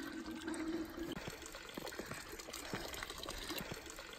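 Water from a fountain spout running into a plastic water bottle as it is filled, with a steady tone through the first second, then splashing and trickling into the fountain trough.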